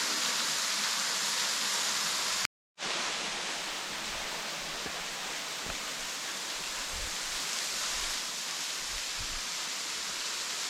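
A waterfall's steady rush of water, an even hiss. It cuts out for a moment about two and a half seconds in and comes back a little quieter.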